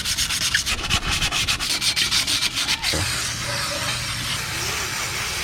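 Sandpaper scraping over a drum brake's shoe lining and braking surface to clean them: fast back-and-forth strokes for about the first three seconds, then a steadier continuous rubbing.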